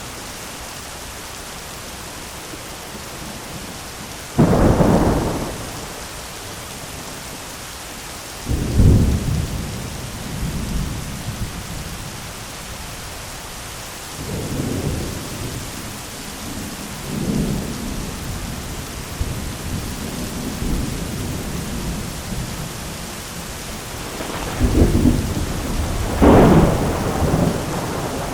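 Heavy rain falling steadily on an umbrella, with thunder: a sudden loud clap about four seconds in, rolling rumbles through the middle, and two more loud claps near the end.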